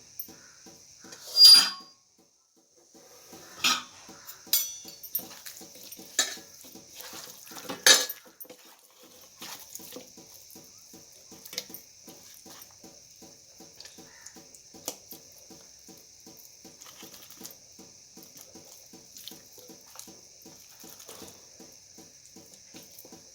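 A bowl and utensils clattering, about five sharp knocks in the first eight seconds, over a fast, even ticking and a steady high hiss.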